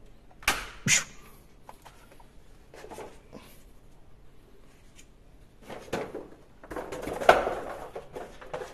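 Hard plastic toy web launcher being handled: two sharp plastic clicks about half a second and one second in, a few light taps, then a longer stretch of plastic clattering and rustling from about six seconds in.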